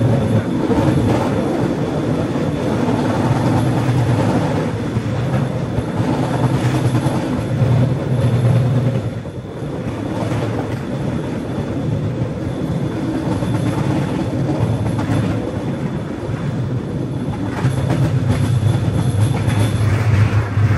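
Battambang norry (bamboo train) running along the rails: the steady drone of its small engine mixed with the rattle and clatter of its wheels on the track. The sound dips briefly about nine seconds in.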